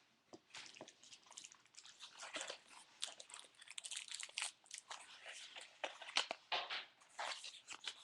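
Crinkly plastic packaging crackling and rustling in irregular bursts as it is handled and pulled at to free a Beyblade launcher.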